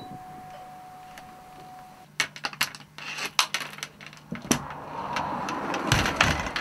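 A doorbell sounds a steady tone for about two seconds, then a brass Yale door chain clinks and rattles in its slide as it is fastened, a run of sharp metallic clicks that grows into a denser rattle with low thuds as the door is eased open on the chain near the end.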